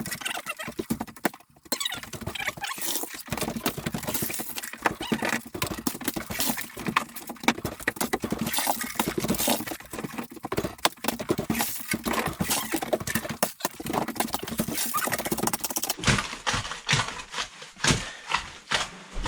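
Rapid, irregular knocking and scraping of hand tools working stone rubble and wet concrete into a foundation form.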